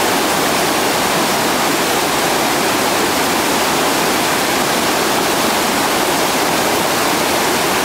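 Whitewater rapids rushing: a loud, steady, unbroken roar of churning river water.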